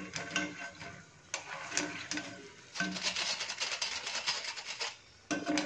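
Wire spider skimmer scraping and clinking against a pan of frying oil as fried murukku is scooped out, in irregular spells of light scrapes and clicks.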